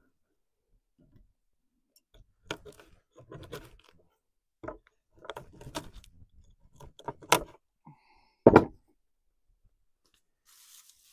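Crackling and tearing of feathers and skin as a grouse carcass is worked apart by hand. Then a sharp knock, and a heavy thud a second later, the loudest sound, of a hatchet striking the wooden table.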